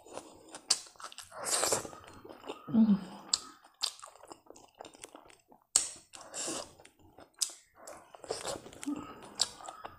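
A person chewing a mouthful of rice and pickle close to the microphone: irregular wet smacks, crunches and mouth clicks.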